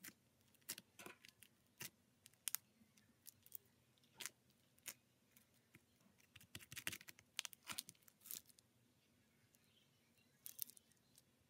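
Floam slime, studded with foam beads, being squeezed and kneaded by hand: faint, irregular crackling and popping clicks that come thickest in the middle and again near the end.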